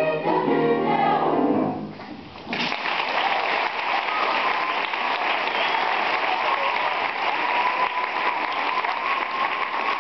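A choir sings the last notes of its song, ending about two seconds in; after a brief hush, an audience starts clapping about two and a half seconds in and keeps applauding steadily.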